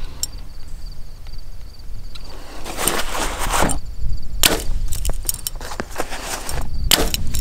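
Mathews VXR compound bow being shot at a distant target: a few sharp snaps of release and arrow impact, about two seconds apart, over a steady low rumble of wind on the microphone.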